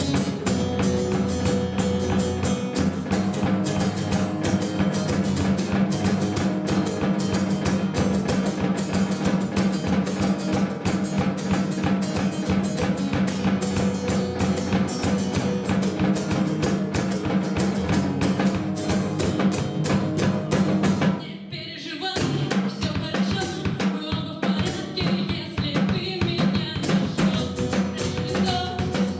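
Live song played on guitar and drum kit, a steady beat under strummed chords, with a brief break about 21 seconds in before the band comes back in.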